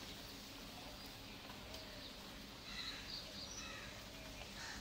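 Faint background noise with a few short, distant bird calls about three seconds in.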